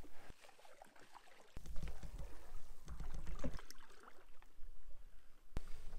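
A canoe paddling away, with paddles dipping and water trickling and lapping at the shore. A low rumble comes in about a second and a half in, and there are faint small splashes and one sharp click near the end.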